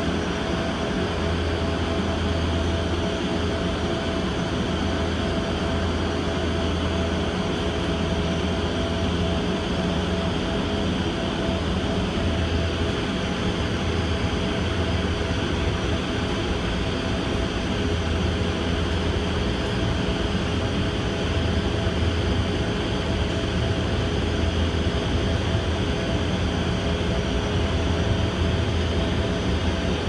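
Steady running noise inside the cable-hauled BART Oakland Airport connector car as it travels along its elevated guideway. It is a constant low rumble with two steady hums.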